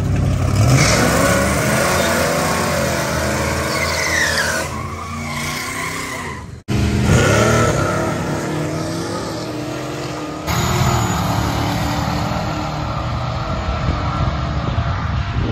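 Drag racing car engine revving hard at high rpm, its pitch rising and falling, with tyre squeal. The sound breaks off sharply about six and a half seconds in and changes abruptly again about ten and a half seconds in.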